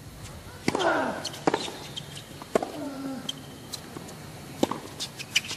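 Tennis rally: sharp racket strikes on the ball, about five in all, a second or two apart. The first two strikes come with short falling grunts from the player hitting.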